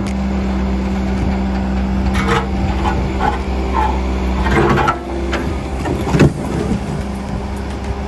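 A John Deere backhoe loader's diesel engine runs steadily while its bucket pushes over a broken concrete slab, with scraping and clattering of concrete. A little after six seconds in, the slab falls flat onto the ground with one loud impact.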